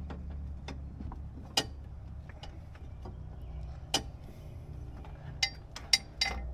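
Metal tools and car parts clinking and tapping as they are handled: scattered light clicks, with a few sharper knocks about a second and a half in, around four seconds in and near the end, over a steady low hum.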